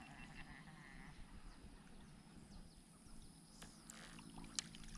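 Near silence: faint outdoor ambience by still water, with one short click a little before the end.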